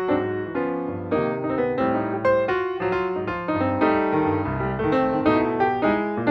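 Background piano music: a steady run of notes, several at a time.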